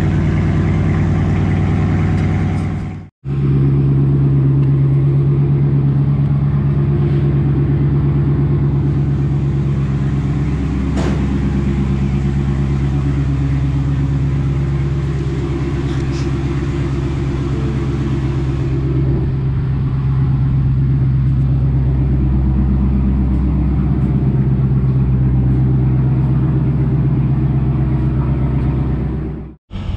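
Straight-piped Dodge Challenger Scat Pack's 392 (6.4-litre) HEMI V8 exhaust running steadily with a deep, loud drone. It drops out for an instant about three seconds in and again near the end.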